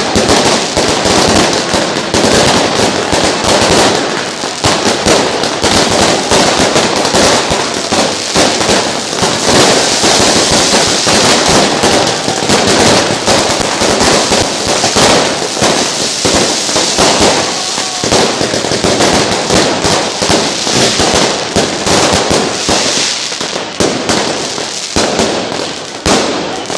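New Year's Eve fireworks and firecrackers banging in a dense, unbroken barrage of overlapping bangs and crackles.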